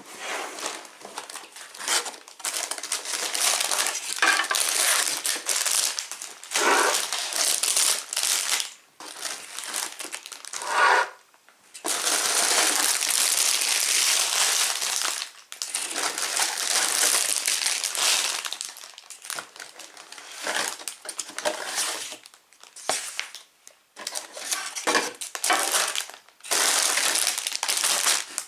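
Sealed plastic bags of LEGO Technic pieces crinkling, the loose parts inside rattling, as they are handled and pulled out of an opened cardboard set box. It comes in a run of bursts with short pauses, with one longer unbroken stretch of rustling near the middle.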